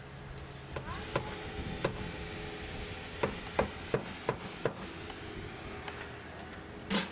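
Hand hammering on a storm-damaged roof: about ten sharp, irregularly spaced knocks, with one louder, longer bang near the end.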